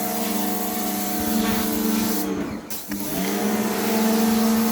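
Pressure washer running with a steady motor hum. It cuts out briefly a little past halfway and picks up again.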